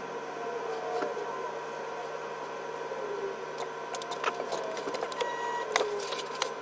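Motor of a line-spooling machine whining steadily while winding braided fishing line onto a reel, with small gliding changes in pitch and scattered clicks and taps of the line and reel being handled.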